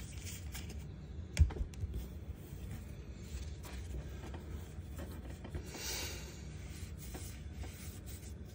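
Hands handling baseball trading cards on a tabletop: a sharp knock about a second and a half in, then light clicks and a short scraping rustle of cards sliding against each other around six seconds in.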